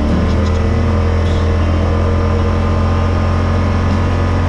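Yamaha Wolverine's engine running at a steady cruise: a constant low drone that holds level throughout.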